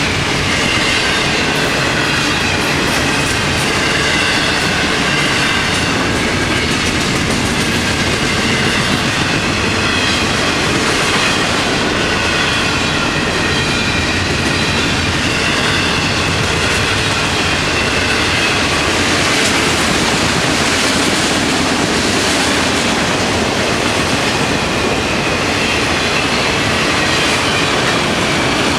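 Loaded freight cars of a long Florida East Coast Railway train rolling past: a steady loud rumble of wheels on rail with clickety-clack over the joints and a high, wavering wheel squeal on top.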